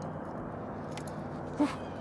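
Low, steady hum of an electric trolling motor on a bass boat, with a few light clicks and a sharper click near the end.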